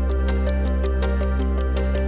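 Background music starting abruptly with a deep sustained bass note, a melody of short notes over it and a light steady beat.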